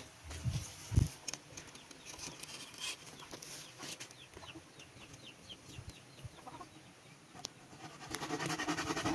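Chickens clucking in short repeated runs, with a single thump about a second in.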